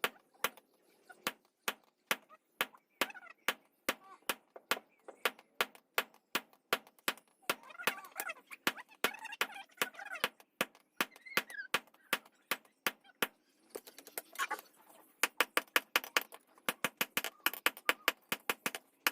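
Hand hammer striking metal on an anvil in steady forging blows, about two a second, quickening to about four or five a second near the end. Faint voices are heard partway through.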